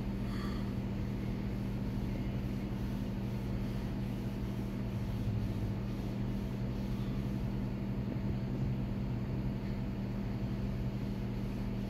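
A steady, low machine hum that holds unchanged throughout.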